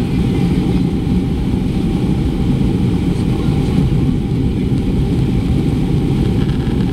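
Airbus A330-200 airliner's engines and rushing air heard from inside the passenger cabin: a loud, steady low rumble with a faint steady hum above it.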